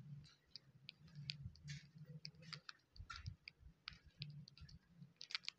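Faint, irregular clicks and light taps, a few at a time, with a cluster near the end, over near silence.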